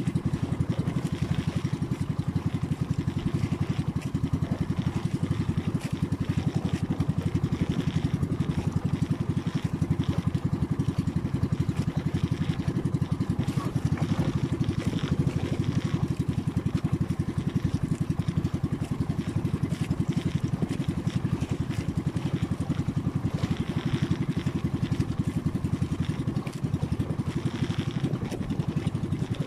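Small fishing bangka's engine running steadily, a low, fast-pulsing drone that holds constant throughout.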